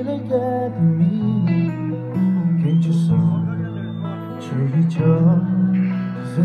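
Live band music played over a PA: electric and acoustic guitars over a steady bass line, with a man's voice singing at times.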